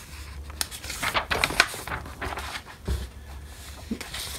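Handling noise: irregular rustling of a sleeve and paper as a notebook is moved about, with a soft knock about three seconds in, over a faint low hum.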